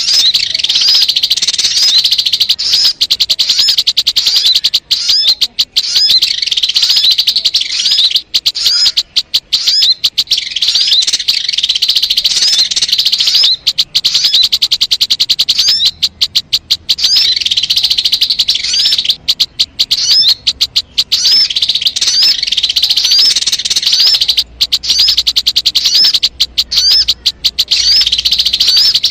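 Sogon bird calling, a recorded lure call used to attract the bird: rapid, high, repeated chirps in long dense runs broken by short pauses.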